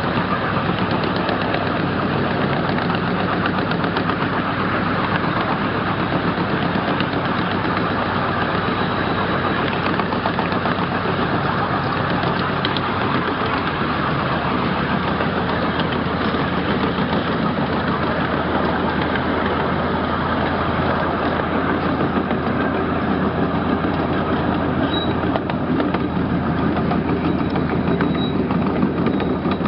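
12-inch gauge miniature railroad train running steadily along the track, heard from an open passenger car: a continuous rumble and clatter of wheels on the rails with the locomotive's engine running, its low hum growing stronger about halfway through.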